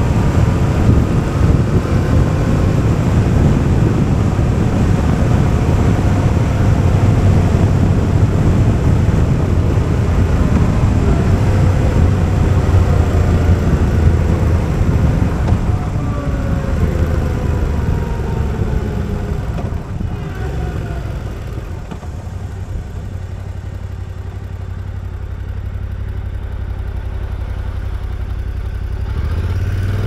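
Yamaha Ténéré 700's parallel-twin engine running through an Akrapovič exhaust, ridden at steady speed. About halfway through, its pitch falls as the bike slows. It settles to a quieter low running, picking up again near the end.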